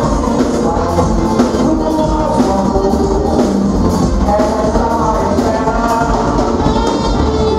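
Forró band music with singing and drums, loud and steady.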